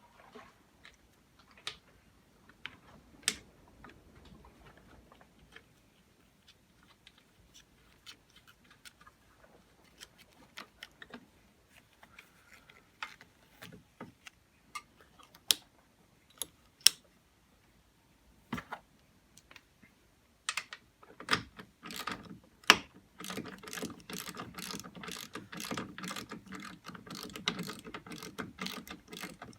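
Scattered clicks and knocks of the seatbelt hardware being handled and fitted, then from about 21 seconds in a long run of rapid clicking from a ratchet wrench tightening the seatbelt's top anchor bolt.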